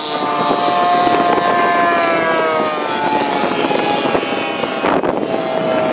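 Engine of a large radio-controlled model warplane flying a pass, a steady propeller-engine note whose pitch falls slowly as it goes by. About five seconds in the sound breaks off abruptly and a different engine note takes over.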